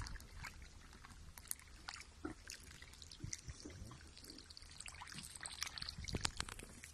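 Faint trickle of liquid through a stomach tube passed into a calf's rumen, during treatment for ruminal acidosis, with scattered small clicks and knocks.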